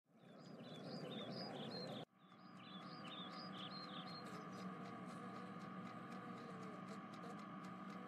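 Faint outdoor ambience of small birds chirping in quick repeated phrases, cutting off abruptly about two seconds in and starting again a moment later. The chirping stops about halfway through, leaving a faint steady background hum.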